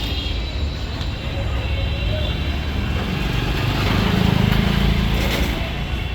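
A motor vehicle's engine running with a steady low rumble, growing louder about four seconds in, with a few faint sharp ticks.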